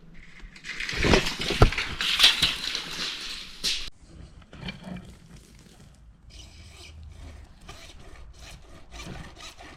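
Rough scraping and rubbing for about three seconds, with a few sharp knocks, then fainter scattered knocks and rustling.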